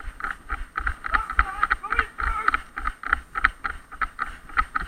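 Quick, irregular footfalls of a player running, each with a dull thump and a rattle of kit, about two to three a second; faint distant voices about halfway through.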